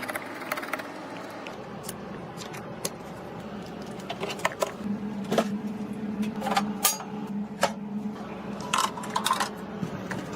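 Scattered clicks and clinks of small metal and plastic parts being handled and fitted, with a low steady hum in the second half.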